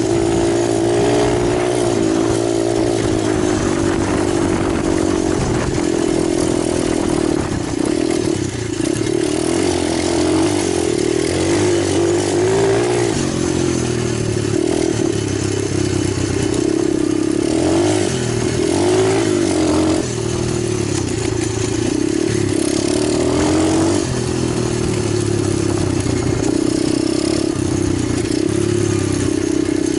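Italjet 125 pit bike engine running continuously, its pitch rising and falling a little as the throttle changes.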